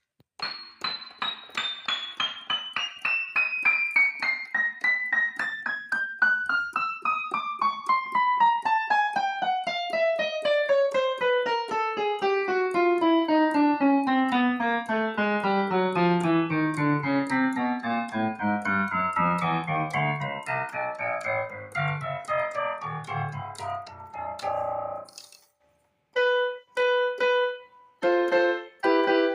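Casio CDP-100 digital piano played one key at a time, about three or four notes a second, in an even run from the highest notes down to the bass. Near the end, a few notes and chords sound in the middle range. The run checks every key after the hammer coupler rubbers have been repaired.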